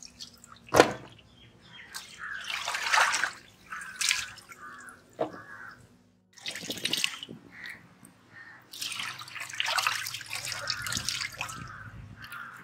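Raw chicken parts being washed by hand in a steel pot of water: irregular splashing and dripping as pieces are swished and lifted out, with one sharp knock about a second in.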